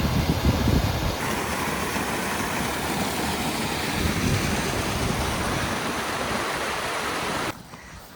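Steady rush of moving water, like a mountain stream or waterfall, with wind buffeting the microphone in the first second. The sound cuts off suddenly near the end.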